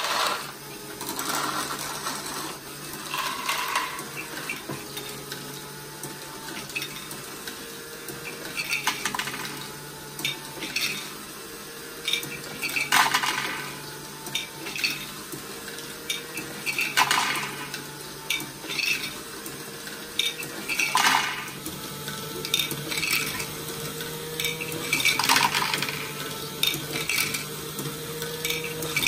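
LEGO Great Ball Contraption module running: a small electric motor and gear train hum steadily while plastic balls rattle and clatter through the machine. A louder clatter of balls comes about every four seconds as the yellow buckets on the toothed Hailfire wheels hand them on.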